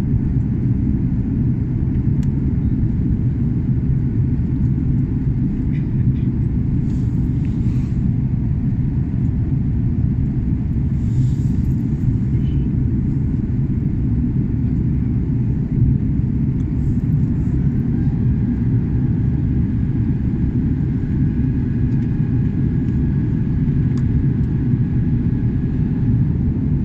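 Steady low rumble of airliner cabin noise from the engines and the air rushing past during descent.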